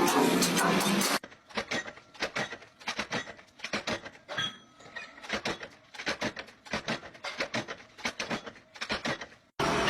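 Loud, steady heavy-machine noise that cuts off abruptly about a second in. It is followed by a run of soft, irregular clicks and taps, several a second, until the machine noise starts again near the end.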